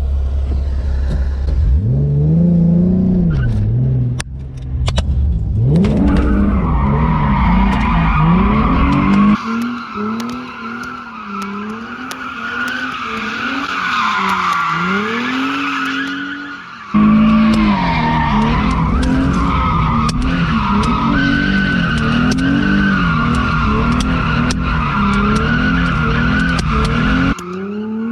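Car engine revving up and down while the car spins donuts, tires squealing continuously, with many short sharp pops over it.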